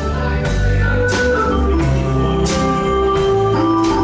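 Live band playing an instrumental passage: bass guitar, acoustic guitar and drums, with long held notes over the bass line and a cymbal or snare hit about every second and a half.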